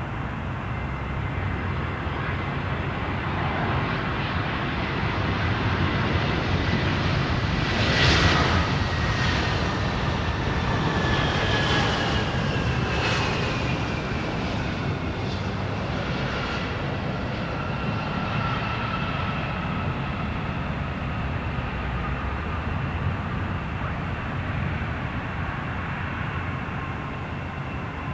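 Airbus A320's twin IAE V2500 turbofan engines on final approach and landing: a steady jet rumble and whine that is loudest about a third of the way in as the aircraft passes. Its whining tones then fall in pitch, and the engine sound carries on as the airliner touches down and rolls out along the runway.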